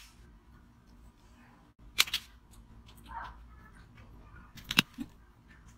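Sharp taps on a clear cup held upside down, knocking it to loosen a moulded block of pomegranate seeds from the mould: two taps about two seconds in, then a quick run of three or four near the end, the last of them the loudest.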